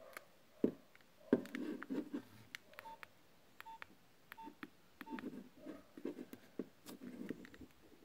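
Nokia 3510i keypad tones: four short beeps, about one every 0.7 seconds, as the menu keys are pressed, with soft key clicks and rubbing of the phone in the hand.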